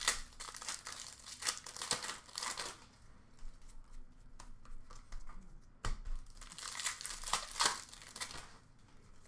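Plastic hockey card pack wrappers crinkling and tearing as packs are opened and cards handled. The crinkling comes in two stretches, in the first few seconds and again late, with a single sharp click about six seconds in.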